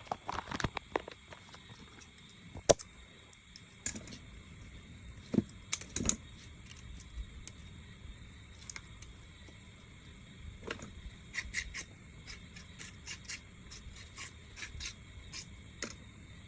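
Irregular sharp clicks and light knocks over a faint steady hiss. The loudest knock comes about three seconds in, and a quick run of clicks comes near the end.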